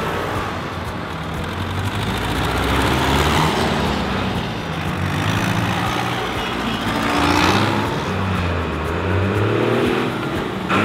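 Farm tractors' diesel engines running as they drive past one after another, each swelling and fading as it goes by.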